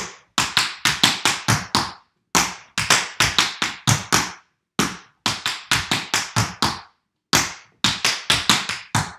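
Tap shoes striking a wooden floor in a fast tap-dance footwork combination: four runs of quick, sharp taps, each about two seconds long, with brief pauses between them.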